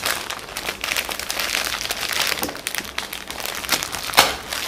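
Plastic packaging and cardboard crinkling and crackling as hands unwrap a parcel, with a louder crackle about four seconds in.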